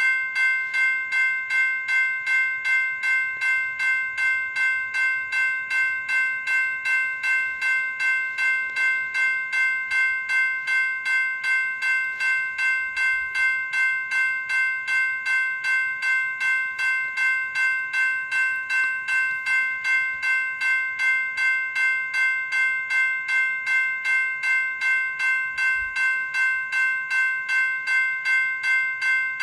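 General Signals Type 2 E-Bell, an electronic railroad-crossing bell, ringing steadily at about two strikes a second, each electronic ding running into the ring of the one before.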